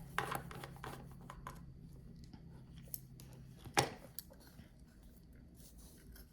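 Light clicks and rubbing of a Phillips screwdriver and small metal parts being handled, with one sharper click a little under four seconds in.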